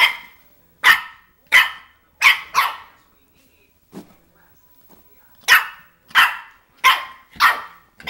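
Nine-week-old Boston terrier puppy giving high-pitched play barks: a run of five, a pause of about two seconds, then four more in quick succession.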